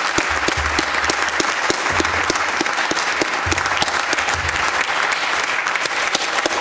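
Audience applauding steadily, a dense, even run of many hands clapping.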